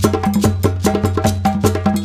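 Background music with a fast, steady percussive beat, sharp clicky strikes over a repeating bass line.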